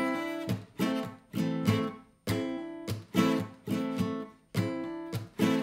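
Acoustic guitar strumming an A minor chord, played with the thumb over the neck at the 5th fret, slowly in a repeating pattern of strums, a hammer-on and muted hits. The muted hits come where the fretting hand releases its pressure, so some strums stop short while others ring on.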